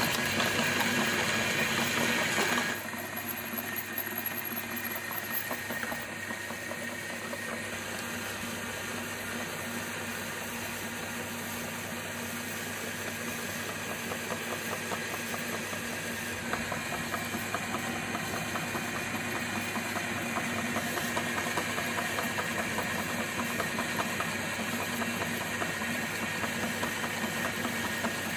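Electric meat grinder's motor running steadily as it grinds Play-Doh clay through its cutting plate. It is louder for the first few seconds, then drops to a steady lower level.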